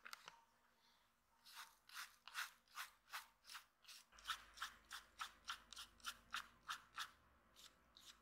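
Small stiff-bristled brush scrubbing dried mud off a die-cast metal model car, in quick strokes of about three a second that start about a second and a half in and stop near the end.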